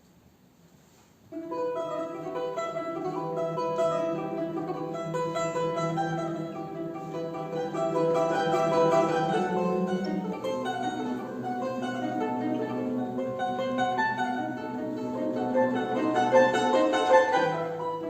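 Plucked-string instruments playing a tune in several parts, starting suddenly about a second in.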